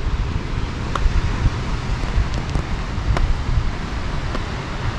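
Wind buffeting the microphone: a steady low rumble with a hiss above it and a few faint clicks.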